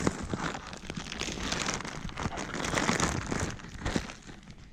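Plastic packaging crinkling and rustling irregularly as a box is opened and a wiring harness is taken out of its bag.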